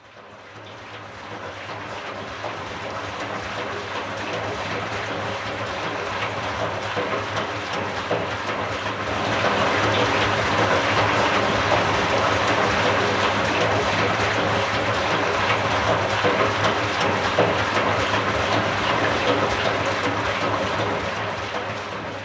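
Front-loading washing machine running a wash: water and suds sloshing in the turning drum over a steady low hum. It fades in, grows louder about nine seconds in, and fades out at the end.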